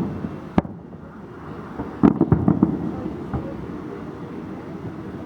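Aerial fireworks shells exploding: a sharp bang at the start and another about half a second in, then a quick volley of bangs and crackles about two seconds in, over a steady rumble.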